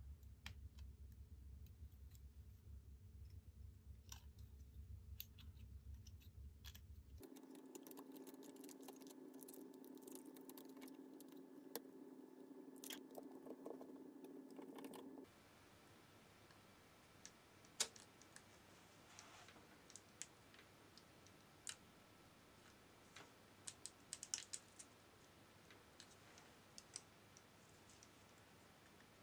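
Faint small clicks and taps from hands working on a disassembled camera body and its small parts, scattered and more frequent in the second half. Under them is a faint hum that changes about a quarter of the way in and drops away about halfway through.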